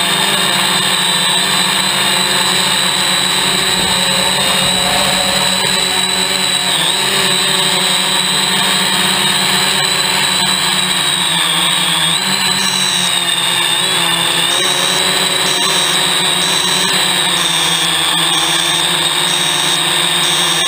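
Hexacopter's electric motors and propellers whining steadily in flight, loud and close, the pitch dipping briefly a few times. From about twelve seconds in a faint high beep repeats about once a second.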